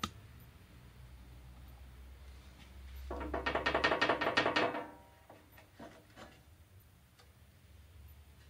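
Knob on a band saw's sheet-metal upper wheel cover being turned to unlatch it: a quick run of clicks, about seven a second, with a metallic ring, lasting under two seconds, a few seconds in.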